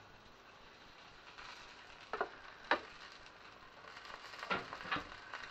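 A metal baking tray of roasted tomatoes taken out of the oven and set down on a glass hob: four sharp knocks and clatters over a faint steady hiss.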